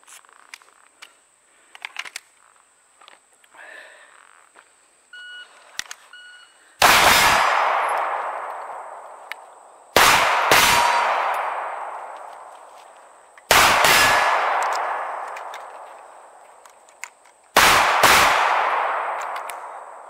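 Two short electronic beeps from a shot timer about five seconds in, then four pairs of pistol shots a few seconds apart: a double tap at each of the four stations of a box drill. Each pair rings out and fades slowly.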